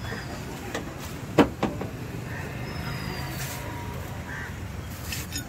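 Two sharp knocks about a second and a half in, a fraction of a second apart, as the stuck bonnet of an old Tata Safari is tugged and worked at; the bonnet latch is jammed from the car standing unused for a long time. A steady low hum runs underneath.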